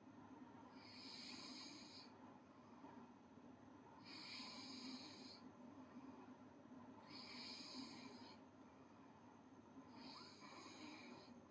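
A girl snoring faintly, four breathy snores about three seconds apart.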